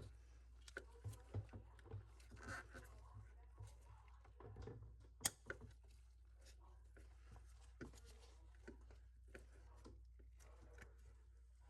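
Near silence over a low steady hum, broken by scattered faint clicks and small knocks, with one sharper click about five seconds in.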